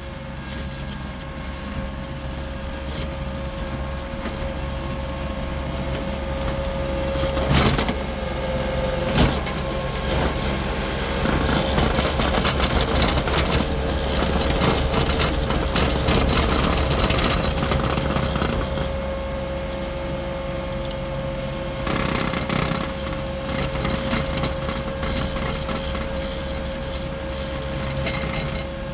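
ASV RT40 compact track loader's diesel engine running under load while its Harley rake works dry soil, with a steady whine over the engine hum. It grows louder in the middle as the machine comes close, and two sharp knocks sound around eight and nine seconds in.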